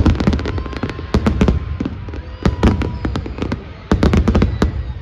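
Fireworks going off in rapid volleys of sharp bangs and crackles, four or five dense clusters a second or so apart.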